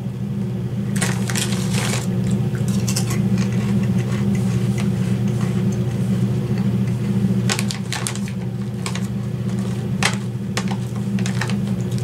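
Potato chips being chewed: irregular crisp crunches, some in quick clusters, over a steady low hum.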